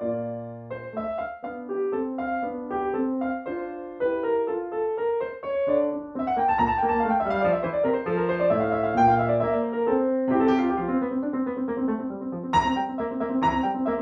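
Solo piano playing a gentle melody over rising and falling broken chords, with higher notes coming in near the end.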